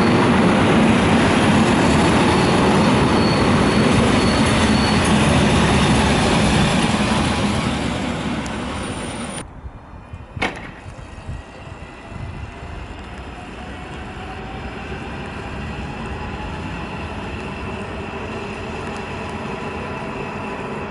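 Koleje Mazowieckie EN57AKM electric multiple unit passing close along the platform: loud wheel-and-rail running noise with a thin high whine, fading after several seconds. Partway through, the sound cuts abruptly to the quieter, steady running of the train moving away, with a faint rising whine.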